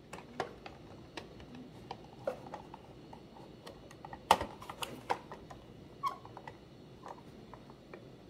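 Scattered plastic clicks and knocks as the paper cassette of a Canon SELPHY CP1500 photo printer and its clear lid are handled and slid into the printer, with one sharp knock about four seconds in.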